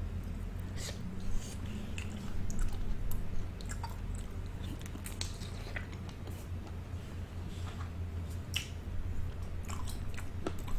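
Close-miked chewing and biting, with wet, squishy mouth sounds and scattered small clicks, as a person eats food from a seafood boil.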